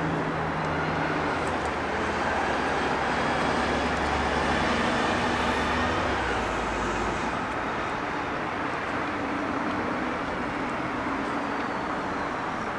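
Road traffic noise, with a vehicle's engine and tyres swelling to a peak near the middle and then easing off a little.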